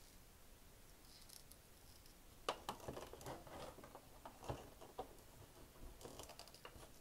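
Faint clicks and light taps of a jointed plastic action figure being handled and laid down on a tabletop, beginning about two and a half seconds in.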